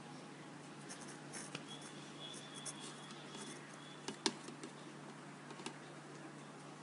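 Faint handling sounds of damp paper being folded by hand on a wet steel plate: soft rustles and small clicks, with one sharper tick about four seconds in, over a steady low hum.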